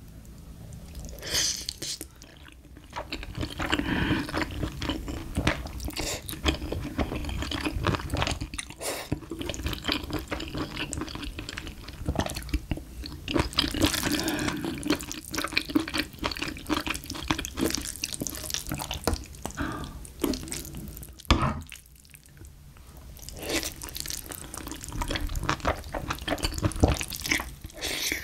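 Close-miked slurping of thin wheat noodles (somyeon) coated in spicy sauce: wet sucking and smacking noises in irregular runs, mixed with chewing, with one sharp click about two-thirds of the way in.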